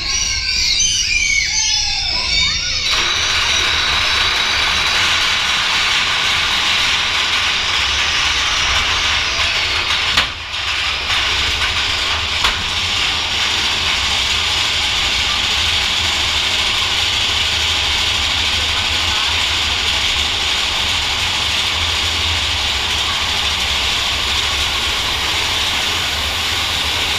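Mine-train roller coaster running along its track, heard from inside the car: a steady low rumble of the wheels with a rushing hiss, after voices in the first few seconds.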